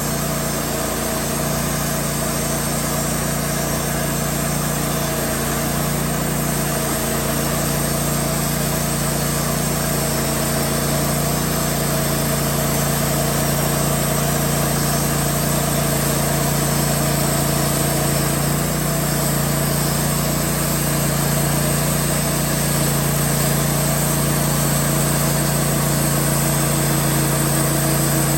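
Woodmizer LT15 portable sawmill running steadily, its engine driving the band blade through a large pine log.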